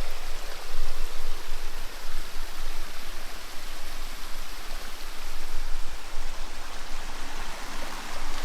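Small waterfall on a mountain stream, water cascading over rocks in a steady rush.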